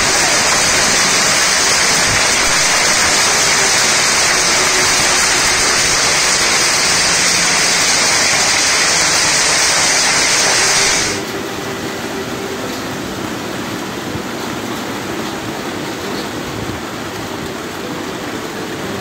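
Heavy rain and hail coming down hard, a loud, dense, steady hiss. About eleven seconds in it cuts abruptly to a quieter, steady rush of rain.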